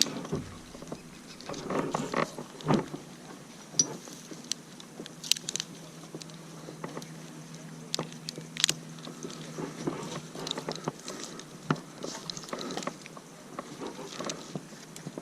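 A chainsaw stops at the start. Then come scattered close clicks, knocks and rustling from handling and climbing gear right at a helmet-mounted camera, over a faint, steady low hum.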